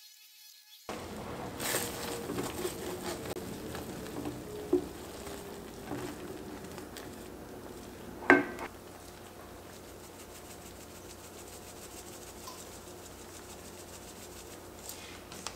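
Thick sauce being stirred in an enamelled cast-iron pot, with soft sizzling and scraping from about a second in. A sharp knock of a utensil against the pot comes about halfway through.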